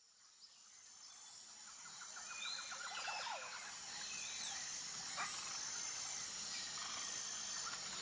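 Forest ambience of birds chirping over a steady high hum, fading in over the first two seconds and then holding level.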